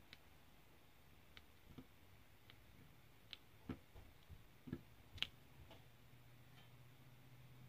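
Faint, irregular clicks and taps of a diamond-painting drill pen pressing square resin drills onto the canvas, the loudest a little after five seconds in. A faint low hum comes in about six seconds in.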